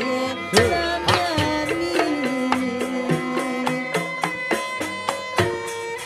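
Live Banyuwangi janger ensemble music. Kendang hand drums play strokes that bend in pitch, most plainly about half a second and a second in, over held melodic tones and a running beat.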